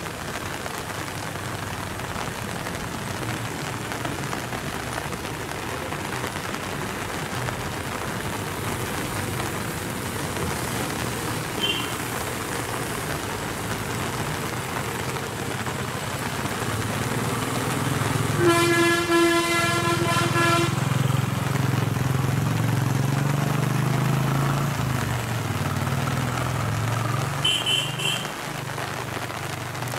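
Steady hiss of rain on a wet mountain road, under the engine of a bus working through a hairpin bend, which grows louder from about halfway. A vehicle horn sounds one long blast of about two seconds, two-thirds of the way through. A couple of short, high-pitched pips come around the middle and near the end.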